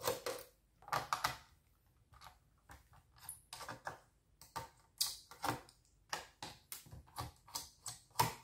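Irregular light clicks and taps, several a second, from hands removing the small screws that hold a laptop's plastic chassis together under the removed keyboard.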